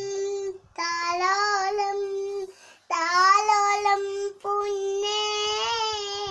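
A child singing a slow lullaby in long, held notes, drawn-out phrases with short breaths between.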